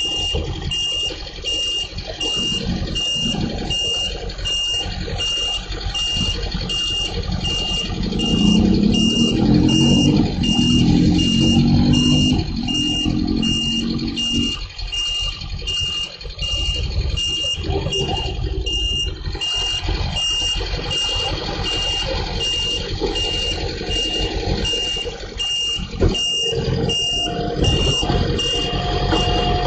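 Garbage truck working with its engine running and a high warning beeper repeating about three times every two seconds; the engine grows louder for several seconds in the middle.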